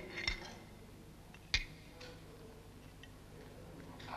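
A few scattered, quiet clicks of enamelled lava mosaic pieces being handled and set down, the clearest about one and a half seconds in.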